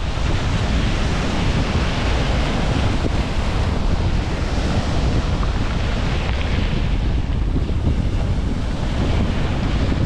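Small ocean waves breaking and washing up over a pebble beach, the surf swelling and easing, with wind buffeting the microphone as a steady low rumble underneath.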